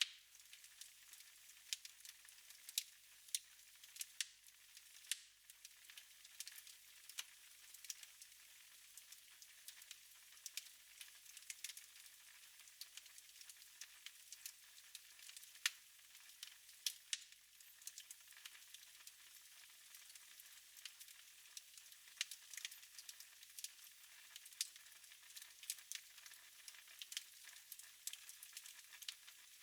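Wood fire burning in a fireplace: a faint steady hiss with frequent irregular sharp crackles and pops.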